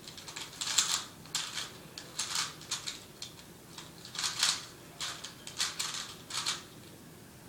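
A 3x3 Rubik's cube being turned by hand: quick runs of clicking, rattling layer turns in short bursts with brief pauses between them.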